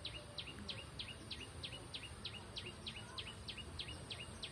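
Outdoor ambience of a steady series of short, high, falling chirps from a small animal, about three a second, over a faint high hiss.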